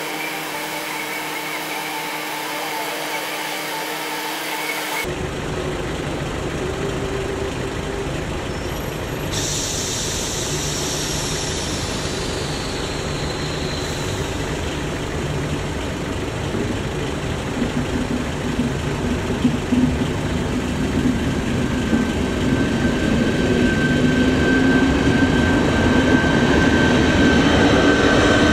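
For about five seconds, sped-up crossing audio runs as a steady whirr of tones, then it cuts abruptly to real-time sound. An approaching ČD class 471 CityElefant double-deck electric unit grows steadily louder, with a steady high whine from its drive coming in during the second half as it reaches the crossing.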